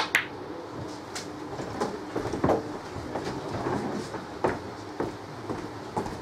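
Snooker balls colliding with a sharp double click, followed by irregular lighter knocks and clicks over a steady room murmur.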